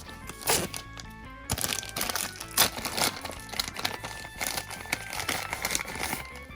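Plastic packaging crinkling and crackling in quick irregular handling as a small blind-bag ball of toy parts is opened, over background music.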